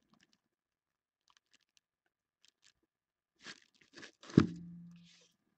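Clear plastic bag crinkling and rustling as a baseball is slid out of it, faint at first and louder about three and a half seconds in, with one sharp knock just after.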